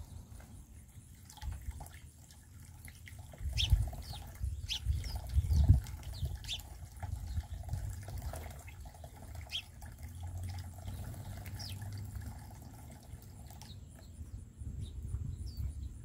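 Water from a small fountain jet splashing and trickling into a plastic-tub bird bath as house sparrows bathe in it, with a dozen or so short, scattered sparrow chirps.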